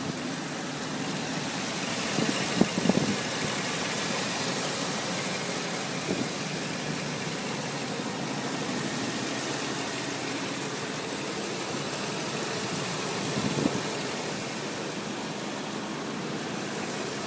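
Ford F-250's 5.4-litre V8 engine idling steadily, heard close to the open engine bay. A few brief knocks come about two to three seconds in and again later on.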